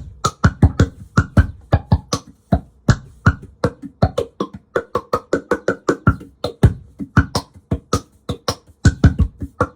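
Fast percussion groove of sharp hits, about four a second, each a deep thump with a bright crack on top, played on an amplified percussion instrument through a bass multi-effects pedal set to its 'dirty Q' effect.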